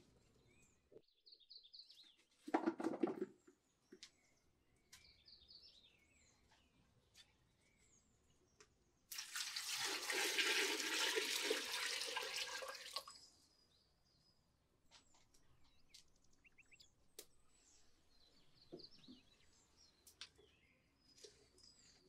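Water poured from a clay pot into a clay cooking pot of potatoes, a steady splashing pour lasting about four seconds near the middle. Birds chirp throughout, and a short noise of handling comes about three seconds in.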